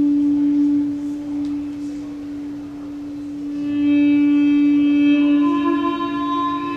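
Accompanying music: a single low note held steadily like a drone, with higher ringing tones swelling in about halfway through and getting louder.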